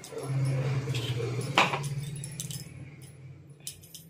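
Steel utensils clinking and rattling as spice powder is tipped from a steel cup into a steel pot, with one sharp metal clink about one and a half seconds in, over a steady low hum.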